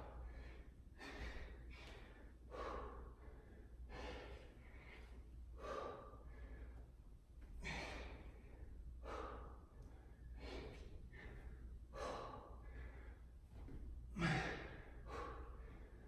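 A man breathing hard from exertion during a plank-rotation exercise: a run of heavy, airy breaths in and out, about one a second, with one louder, heavier exhale about fourteen seconds in.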